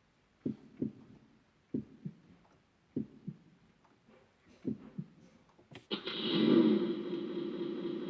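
Keyboard heartbeat sound effect: four double thumps, lub-dub, a little over a second apart. Near the end a loud, steady, droning synthesized effect cuts in.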